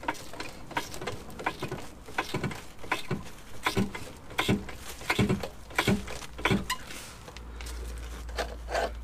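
Hydraulic trolley jack being pumped by its long handle, a sharp click or knock at each stroke, about one to two a second, as it lifts a vehicle's wheel. The clicks stop about seven seconds in, giving way to a steady low rumble and a single click near the end.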